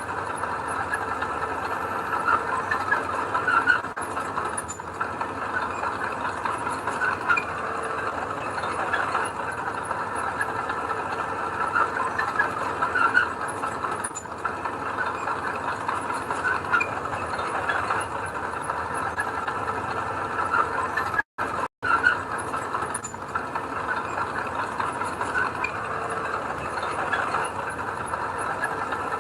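Diesel engine of heavy earthmoving equipment running steadily, with metallic squeaking and clatter over it. The sound cuts out twice very briefly about three-quarters of the way through.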